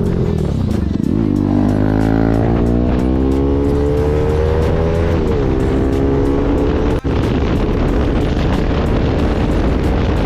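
Motorcycle engine accelerating: its pitch climbs steadily for about four seconds, drops sharply at a gear change, then holds steadier at a lower pitch, with music underneath.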